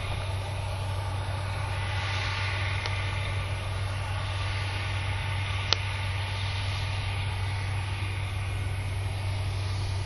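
Engine of a large piece of harvest machinery running steadily with a constant low hum, and a single sharp click a little past halfway through.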